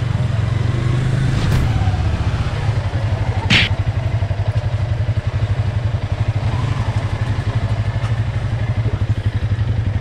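Motorcycle engine idling with a rapid, even low pulse. There is one brief sharp click a few seconds in.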